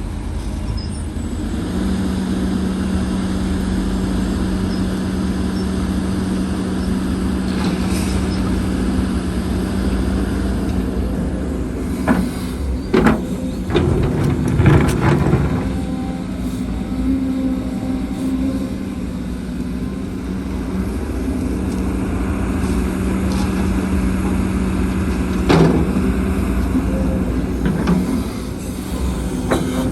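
Heavy diesel earthmoving machinery running steadily under load, with sharp metallic clanks and knocks around the middle and once more near the end.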